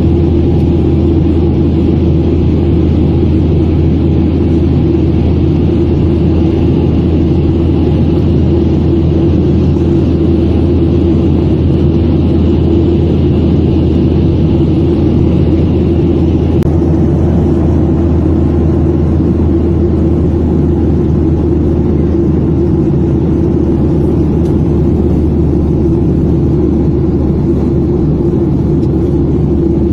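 Steady, loud drone of a jet airliner in flight heard from inside the cabin: engine and airflow noise with a low hum underneath. A faint higher hiss in it drops away about halfway through.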